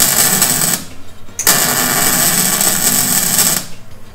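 Electric arc welder crackling in two bursts, one of under a second and one of about two seconds, as weld is built up on a seized steel stud broken off in an aluminium cylinder head, to weld on a nut and pull the stud out.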